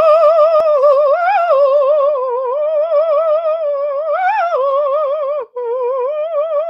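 A single unaccompanied voice singing a wordless high note with wide, even vibrato, swelling up in pitch twice. It breaks off briefly about five and a half seconds in, then holds the note again.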